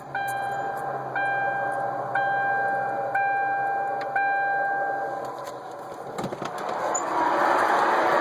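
A car's warning chime dings about once a second, six times, then stops about five seconds in. After a click near six seconds, a steady rushing mechanical noise builds and grows louder near the end.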